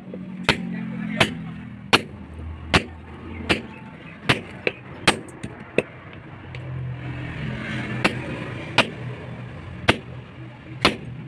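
Steady hammer blows on metal, about one every three-quarters of a second, with a pause of a couple of seconds midway, typical of forging a basula (adze) blade on an anvil. A low engine-like drone swells under the blows in the middle.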